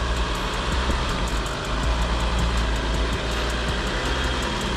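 Jeep off-road vehicle crawling slowly along a tight dirt trail: a steady low rumble of engine and drivetrain with tyre noise, heard from outside beside the front wheel.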